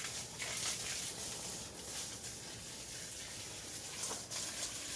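Water spraying from a garden hose onto plants and soil: a steady hiss, with a brief louder swish about a third of a second in and another about four seconds in.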